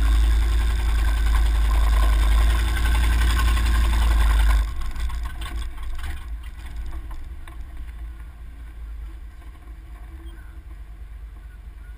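Pickup truck driving on a dirt track, its engine pulling under throttle with wind buffeting the microphone; about four and a half seconds in the sound drops sharply as the throttle is let off, fading to a quiet engine idle as the truck rolls to a stop.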